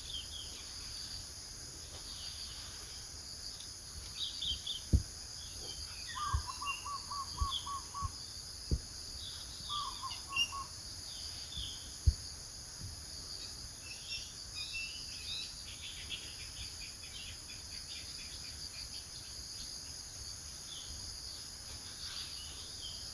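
Steady high-pitched insect chorus with scattered chirps of small birds. One bird gives a run of about eight evenly spaced lower notes, then a shorter run a few seconds later. A few sharp clicks stand out.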